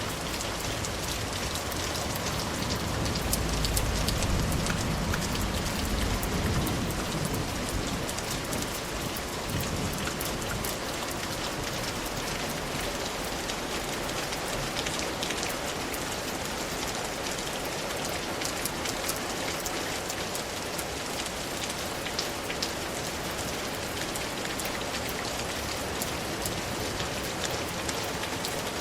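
Steady rain falling, with many individual drops pattering on a surface. A louder low rumble swells and fades a few seconds in.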